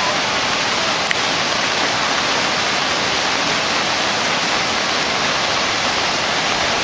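Rushing floodwater: a river in spate surging past a steel truss railway bridge with its water almost up to the deck, a loud, steady roar.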